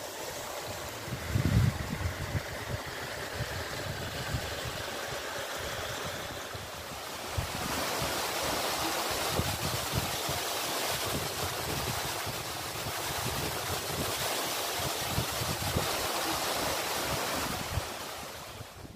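Small waterfall and stream splashing over rock: a steady rushing of water that grows louder about seven seconds in, with wind rumbling on the microphone underneath.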